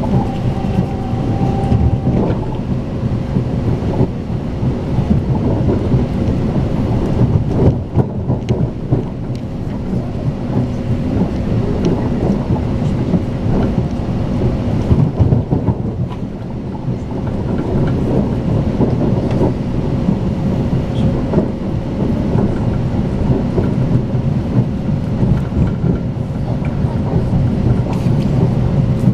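A Talgo Strizh high-speed train coach running along the track, heard from inside the carriage: a loud, uneven low rumble with a thin steady hum running through it.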